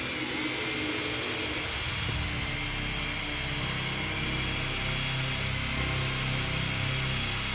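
Spinning power-saw blade whirring steadily, a continuous high whine over a low rumble.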